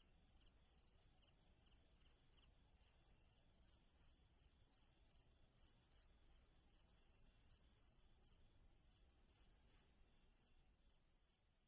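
Cricket chirping sound effect, slightly raised to PAL pitch: high, rapid chirps about four a second that run together into a near-continuous trill in the middle and separate into distinct chirps again toward the end.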